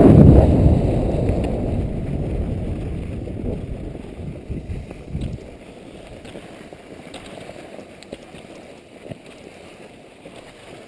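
Wind rushing over an action camera's microphone, with skis hissing over packed snow during a downhill run. Loud at first, it fades over about five seconds to a faint hiss.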